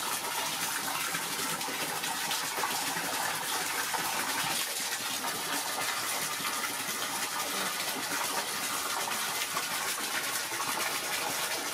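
Water gushing steadily, filling a basin of soapy bath water.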